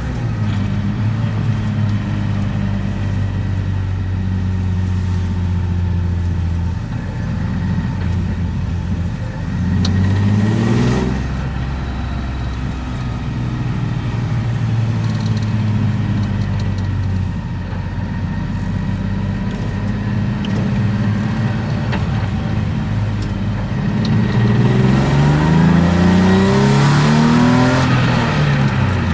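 BMW M50B25 2.5-litre inline-six with aftermarket headers and exhaust, heard from inside the cabin, running at a steady pitch under light load. About ten seconds in it revs up briefly, and near the end it accelerates, the pitch climbing steadily before dropping back at a gear change.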